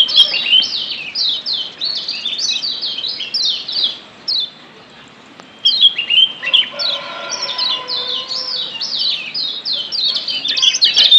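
Lombok yellow white-eye (kecial kuning, a Zosterops) giving fast runs of sharp, falling chirps, several a second, with a pause of about a second just before the middle.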